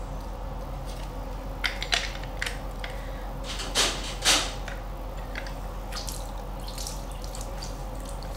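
Lime juice being pressed out with a hinged plastic lime squeezer and dripping onto fish in a glass dish: light clicks and drips, with two louder clacks near the middle as the squeezer is opened and reloaded with a fresh lime half.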